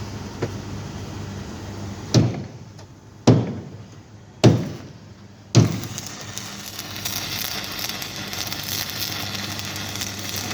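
Four loud, sharp metallic knocks about a second apart, then from about halfway through a steady crackling hiss, during metal repair work on a steel tanker tank.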